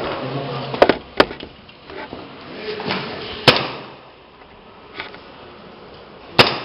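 Airsoft fire: four sharp, loud cracks, two close together about a second in, one about halfway and one near the end.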